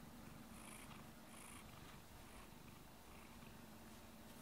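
Domestic cat purring faintly and steadily while being stroked.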